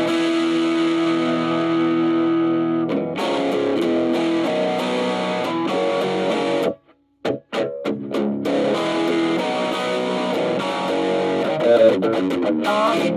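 Electric guitar played through a chain of VOX Valvenergy Nutube drive pedals into a Spark Go amp, with a lightly overdriven tone that sounds and feels like a tube amp. A chord rings for about three seconds, then strummed chords follow, broken by a short pause with a few quick stabs about seven seconds in.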